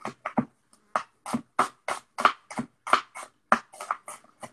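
Kitchen knife dicing an onion on a wooden chopping board: quick, uneven chops, about four or five a second.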